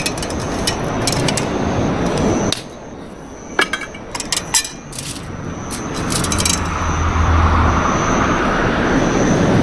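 A quick cluster of light clicks and clinks, like small hard objects knocking together, in a quieter gap between stretches of steady rushing noise.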